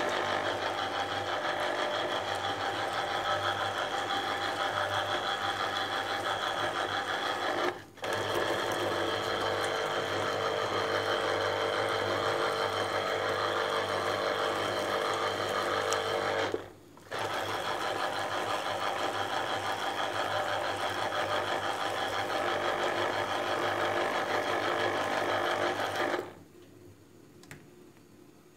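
Electric blender motor running steadily in three runs of about eight seconds each, with brief stops between them, as lemons are blended for lemonade. It stops about 26 seconds in.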